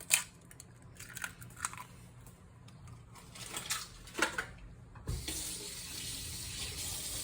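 A few light kitchen clicks and taps, then a steady hiss that starts suddenly about five seconds in and keeps going.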